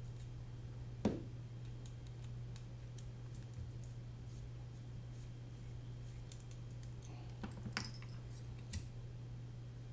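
Light clicks and taps of a hex screwdriver and small parts being handled on a drone frame, the sharpest click about a second in and a short cluster of clicks near the end, over a steady low hum.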